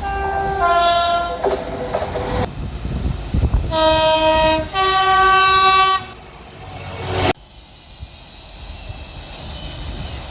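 A British train's two-tone horn sounds twice, each time two different notes in quick succession, over the noise of the train running. About seven seconds in, the sound cuts off suddenly to a quieter rumble.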